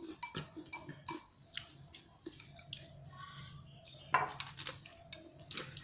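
Spoon and chopsticks clinking lightly against plates and bowls during a meal, with a louder clink a little past four seconds in.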